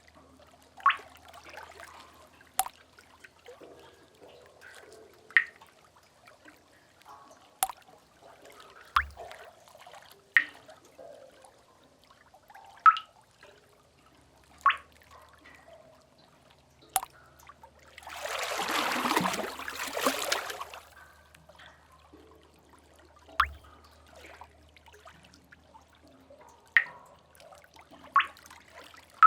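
Water drips falling at irregular intervals in a sea cave, a dozen or so sharp plinks one to three seconds apart, with a faint low rumble underneath. About two-thirds of the way through, a splash of water washes through for about three seconds.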